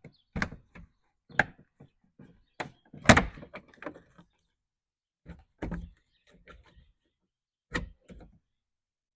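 Scattered clicks and knocks of tools and plastic trim on a truck's door panel, with the loudest knock about three seconds in.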